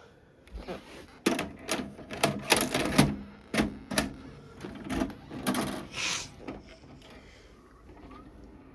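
A quick run of sharp mechanical clicks and clacks, about a dozen over six seconds, then dying away.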